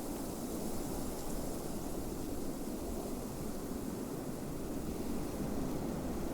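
Blizzard wind blowing steadily, a dense low rushing with a faint hiss above it and small swells, without gusts or whistles.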